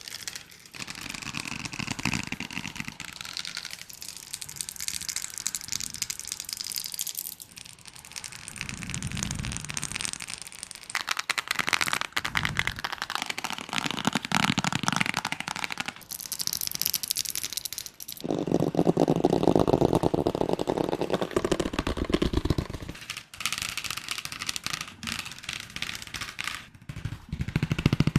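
A quick succession of different ASMR trigger sounds, a new one every three to five seconds, each a dense run of small clicks and scratches; the loudest and deepest one comes about two-thirds of the way through.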